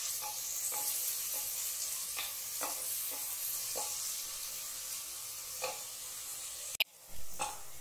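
Chopped onions sizzling steadily in hot oil in a pressure cooker, being sautéed until soft, while a wooden spatula stirs them and scrapes the bottom of the pot about every half second. The sound cuts out briefly near the end.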